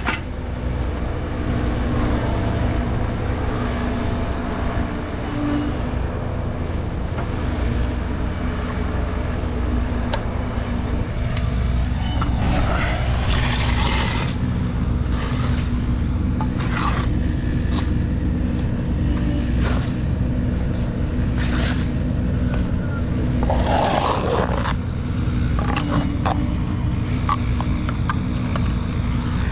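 An engine running steadily throughout, with a few short scraping noises over it about halfway through and again near the end.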